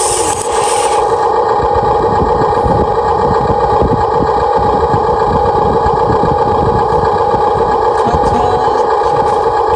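Huina 1593 remote-control excavator's electric motors and gearboxes whining steadily as it works, with a high hiss that cuts off about a second in.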